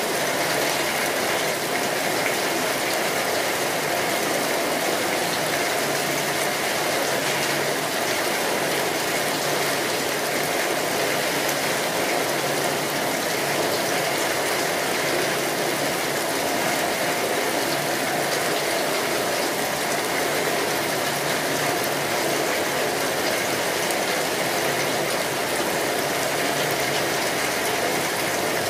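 Steady rainfall: an even, unbroken hiss of rain.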